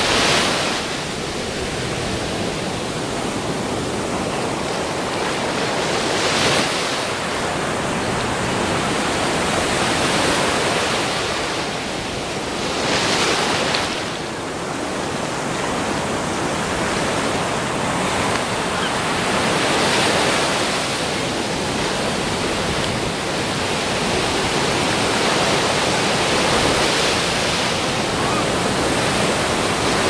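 Big ocean waves breaking on a beach: a continuous rush of surf and foam that swells into a louder crash of a breaking wave about every six to seven seconds.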